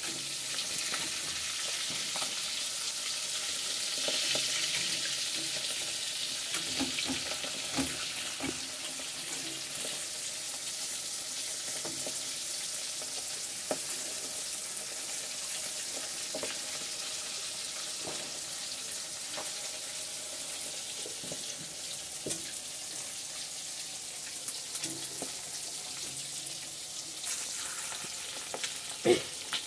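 Small fish pieces sizzling steadily in hot oil in a metal kadai as they are shallow-fried, with a few light knocks and scrapes against the pan as the pieces are turned.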